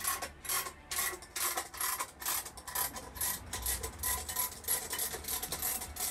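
Quick, even rasping strokes of a hand tool rubbed back and forth, about three strokes a second, starting abruptly.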